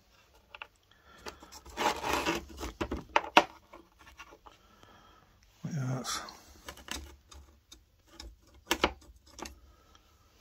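Small metal parts of a dismantled rope clutch being handled: the steel through-pins sliding out of the clutch's alloy side plates and being laid down, giving scattered clicks and taps with a couple of short scrapes.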